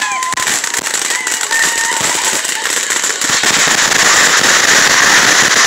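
Consumer firework crackling and hissing steadily with rapid fine pops, growing louder in the second half.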